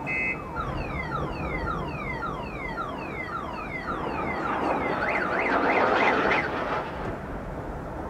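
Car alarm cycling through its tones: a last beep, then rapid falling chirps about three a second, then a louder fast up-and-down warble about halfway through that fades out near the end.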